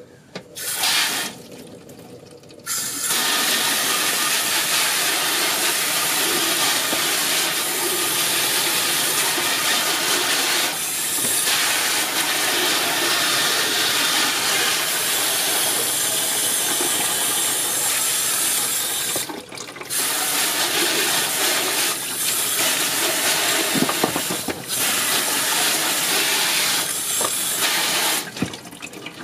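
Garden hose spray nozzle spraying water onto a crab in an aluminium steamer pot, the spray splashing on the shell and the metal. A short burst about half a second in, then steady spraying from about three seconds in, broken briefly twice, and stopping shortly before the end.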